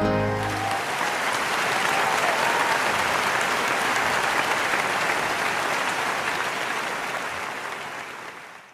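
An audience applauding at the end of a song, with the last held note of the music dying away at the start; the clapping fades out near the end.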